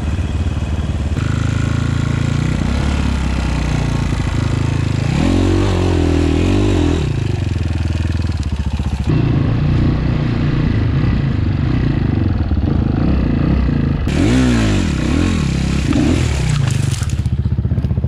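250cc dirt bike engine running under riding load, revving up and back down twice. The engine note changes abruptly a few times.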